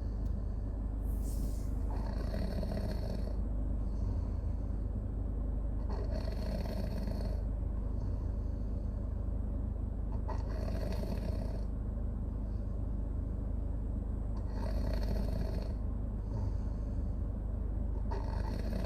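A baby snoring in slow, regular breaths, about one snore every four seconds.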